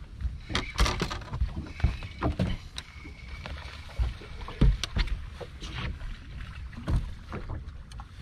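Wind rumbling on the microphone and water against a bass boat's hull, with irregular knocks and clicks on the deck and fishing tackle as an angler fights a hooked fish on a bent rod. The loudest knocks come about a second in and near the middle.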